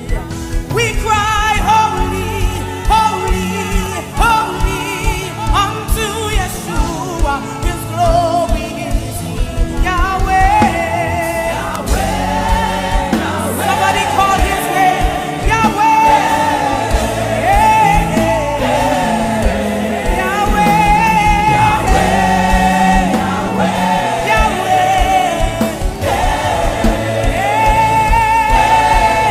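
Gospel worship song performed live: singers with melodic runs over a band with a steady drum beat.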